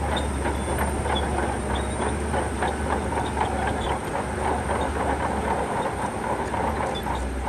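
Shantui crawler bulldozer at work: its diesel engine runs with a steady low drone while the steel tracks clatter and clank continuously, with a dense run of small metallic clicks.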